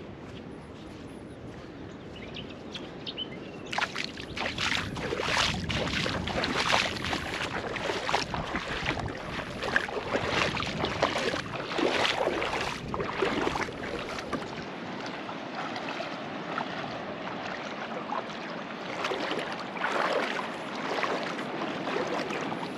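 Water splashing and sloshing in irregular surges, starting about four seconds in and easing off after about fourteen seconds, with another short spell near the end.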